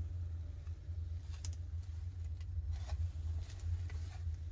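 A steady low hum with a few faint, scattered light taps and clicks.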